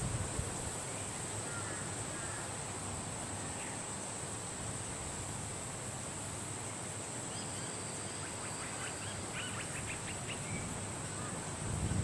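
Outdoor nature ambience: a steady high-pitched insect drone over a hiss of wind, with birds chirping faintly. A quick run of chirps comes about two-thirds of the way through.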